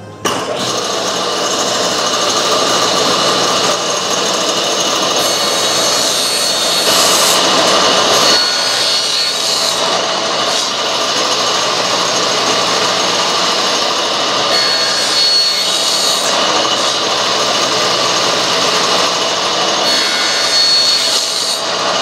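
Table saw running steadily, its blade crosscutting thin wooden strips into small pads one after another. The sound shifts several times as pieces go through the blade.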